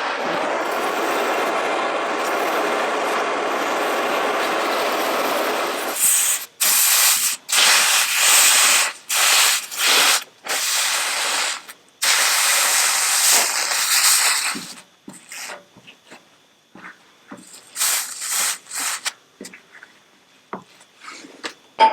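A blowlamp flame running with a steady roar for about six seconds while heat-shrinking an oil-canned steel body panel. It stops abruptly and is followed by about eight short hissing sprays, then a few light taps and clicks on metal.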